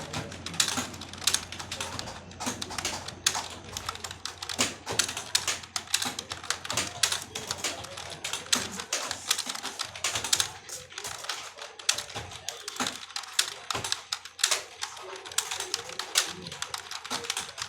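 Computer keyboard being typed on in steady, fast bursts of key clicks, several keystrokes a second.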